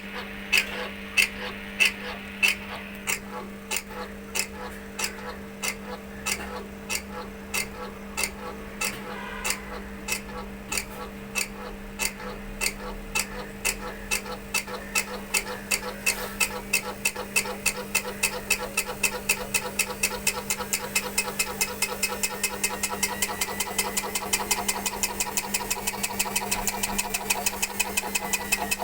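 IFB front-load washing machine running with a steady motor hum and a regular clicking knock from its damaged belt pulley. The knocking comes about one and a half times a second at first and quickens to about three a second as the drum speeds up.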